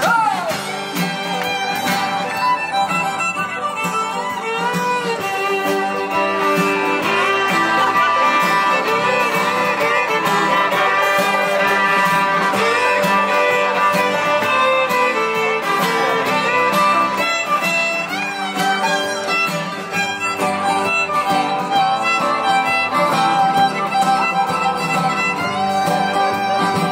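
Live acoustic string band playing an instrumental passage, a fiddle carrying the melody over strummed acoustic guitar.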